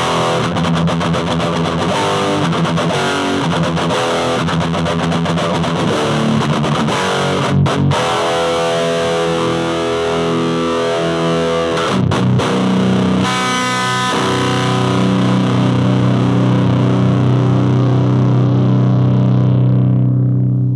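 Gibson Flying V with PAF-style pickups played through a 1972 Marshall JMP50 valve amp and a miked guitar speaker, cranked into distortion. It plays a chopped rock riff with two short breaks, then strikes a chord a little past halfway and lets it ring out, fading near the end.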